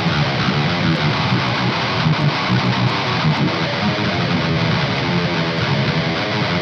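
Heavy-metal riff on a high-gain distorted electric guitar, run through the Aurora DSP Laboga Chainsaw distortion and Laney Digbeth amp-sim plugins, playing steadily and loud.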